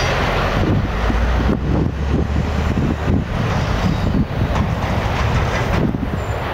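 Freight train rolling away down the track: a steady rumble of wheels on rail with irregular clatter from the cars.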